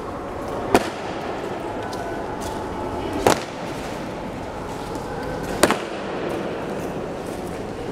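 Honour guard's slow ceremonial march step: boots stamping down on the stone floor three times, about two and a half seconds apart, over a steady background hum.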